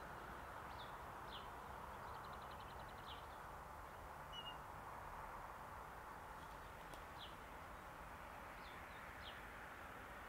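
Faint outdoor ambience of small birds calling: short high chirps about once a second, with a brief rapid trill about two seconds in, over a faint steady hum.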